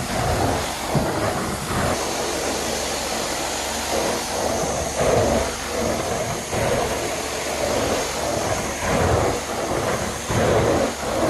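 Hot-water carpet extraction tool running over carpet: a steady vacuum roar that swells with each stroke of the tool, every second or two.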